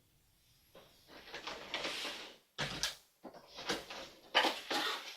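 Cardboard toy box being opened and unpacked: repeated rustling and scraping of packaging in short bursts, with a sharper knock a little past halfway.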